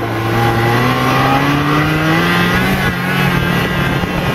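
Snowmobile engine accelerating, its note rising steadily for about three seconds and then holding.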